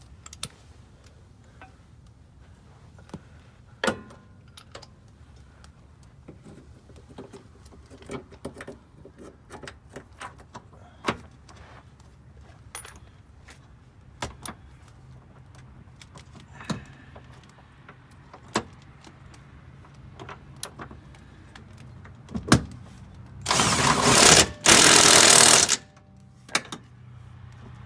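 Scattered metallic clicks and knocks as a car wheel and its lug nuts are handled, then an impact wrench runs twice, a second or so each time, about 23 seconds in, running the lug nuts on.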